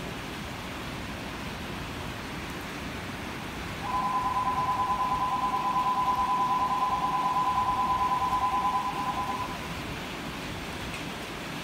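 Station departure bell ringing as a signal that the doors are closing, starting about four seconds in and lasting about five and a half seconds. It is a steady two-note electronic ring with a fast trill, over a steady hiss of rain.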